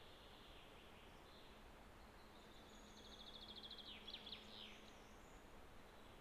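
Near silence: faint outdoor ambience. About halfway through, a bird gives a brief high, rapid trill, then a few short falling notes.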